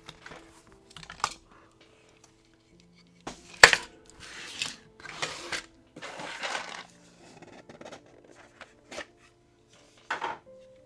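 Small plastic building-block pieces clicking and rattling as they are handled and sorted, in short bursts, with one sharp clack about three and a half seconds in.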